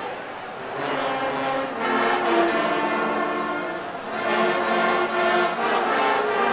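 Guggenmusik carnival brass band playing loudly: massed brass including sousaphones holding full chords that change every second or so, over drums with percussion hits cutting through.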